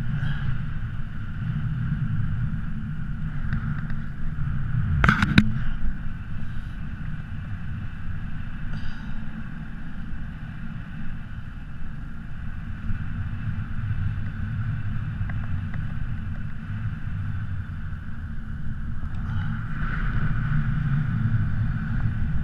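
Wind from the airflow of a parachute descent buffeting the camera's microphone: a steady low rumble. A brief sharp noise cuts through about five seconds in.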